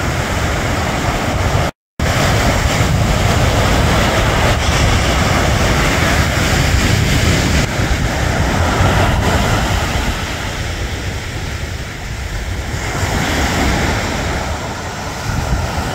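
Ocean surf with wind buffeting the microphone, a steady rushing noise heaviest in the low end. The sound cuts out completely for a moment just before two seconds in.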